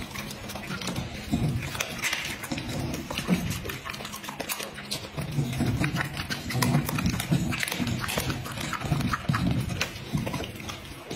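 Dog chewing and smacking on food taken from a hand, with many quick wet clicks of the mouth and jaws.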